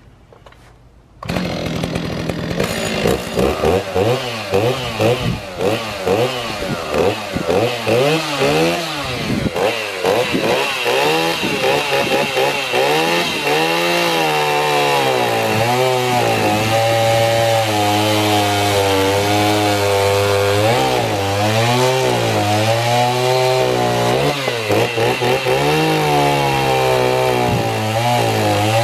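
Stihl 029 two-stroke chainsaw, with a freshly tuned carburetor and a just-sharpened chain, coming in suddenly about a second in and revved in quick bursts, then held at high throttle as it cuts a round off a log, its pitch sagging and recovering as the chain bites into the wood.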